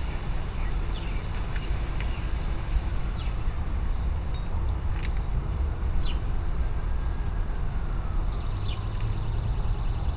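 Outdoor ambience: a steady low rumble of distant traffic, with a few short, falling bird chirps scattered through.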